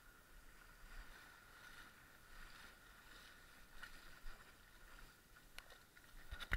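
Faint, muffled sloshing of footsteps wading through shallow muddy water, over a faint steady high whine.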